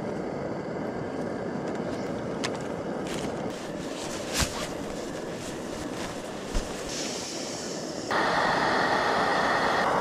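Camp stove burner hissing steadily under a pot of water being brought to the boil, with a couple of small knocks. The rush gets louder and brighter about eight seconds in.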